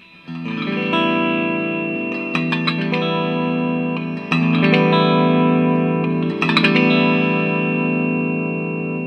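Electric guitar strummed through an Ampeg V4 tube amp set as bright as it goes: bass all the way off, bright switch on, treble and the 3000 Hz midrange all the way up. Four chords are struck about two seconds apart, each left to ring.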